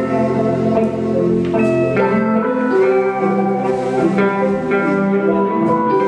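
A live band plays an instrumental passage in which guitars carry sustained melody notes over a full band, with keyboard, bass and drums.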